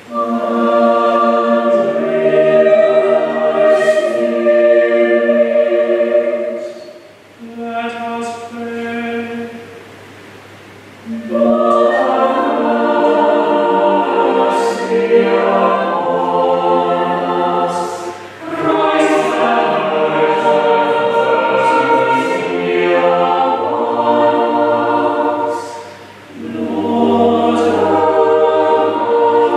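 Mixed chapel choir singing unaccompanied, in phrases broken by short pauses. About eight seconds in comes a brief line held on a single note, like a chanted intonation.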